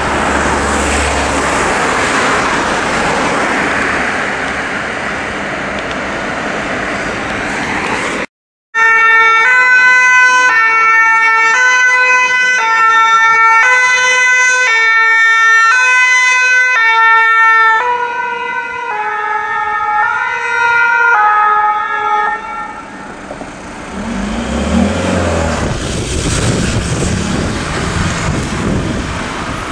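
Road traffic noise, then after a cut a French fire-service rescue van's two-tone siren, stepping back and forth between two notes, pulling away and fading out. Traffic noise returns near the end.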